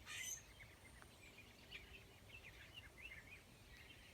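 Faint chirping of a flock of small songbirds: many short, quick calls, some overlapping, from about a second in to near the end.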